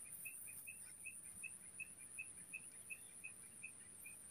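Faint rural ambience: a small animal calls with a steady run of short high notes, a little under three a second, stopping just before the end. A thin, steady, very high insect drone runs underneath.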